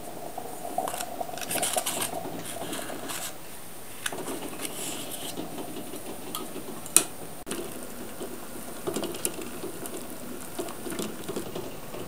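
Table knife scraping butter across a slice of crusty bread in irregular strokes, with light clicks of the knife against the plate and one sharp click about seven seconds in.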